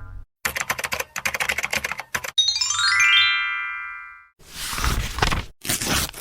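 A string of editing sound effects: a rapid run of keyboard-typing clicks, then a quick cascade of bell-like chime notes falling in pitch and ringing out, then two short noisy whooshes.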